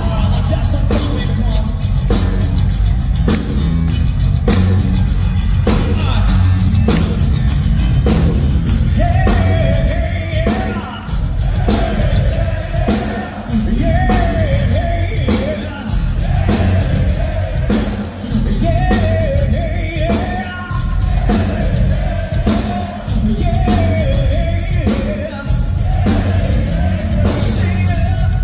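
Hard rock band playing live: drums, bass and electric guitars, with a male lead singer coming in over them about nine seconds in.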